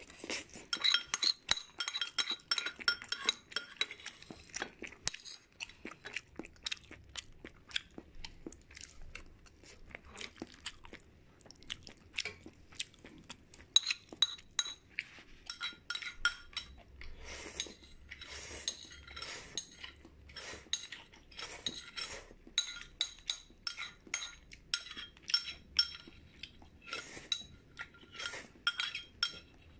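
Eating utensils clinking and scraping against a dish, many quick clinks each with a short ringing tone, mixed with chewing. The clinks come thick in the first few seconds, thin out, then pick up again about halfway through.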